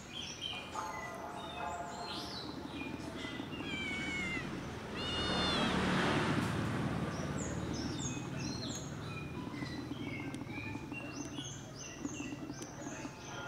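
A stray cat meowing, with drawn-out curving meows about four to five seconds in, while small birds chirp rapidly throughout. A louder burst of noise comes around the middle.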